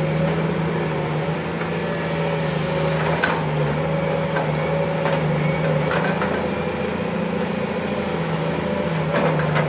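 Sumitomo hydraulic excavator's diesel engine running steadily at an even pitch, with a few short knocks, one about three seconds in and another about six seconds in.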